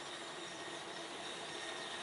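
Faint, steady hiss and hum of a steam locomotive in the distance as it draws slowly closer.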